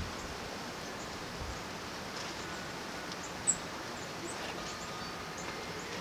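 Steady wind noise in snowy woods, with a few faint, short, high chirps of small birds and one sharper high chirp about three and a half seconds in. A brief low bump of wind or handling on the microphone comes at the very start.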